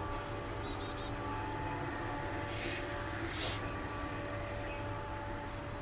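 Empty covered hopper cars of a freight train rolling past: a steady low rumble of wheels on rail with a faint, even hum over it. Short high bird chirps come about a second in, and a buzzy high trill runs through the middle.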